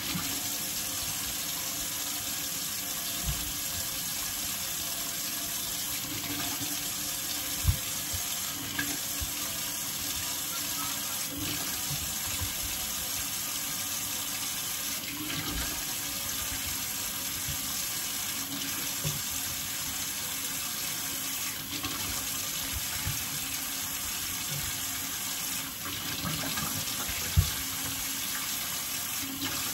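Kitchen tap running steadily into the sink, with a few light knocks and two sharper ones, about eight seconds in and near the end.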